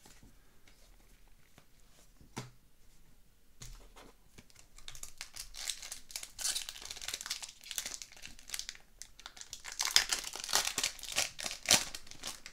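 Foil wrapper of a hockey card pack being torn open and crinkled by hand. A couple of small clicks come in the quieter first few seconds. Crinkling builds from about five seconds in, with sharp tearing crackles loudest near the end.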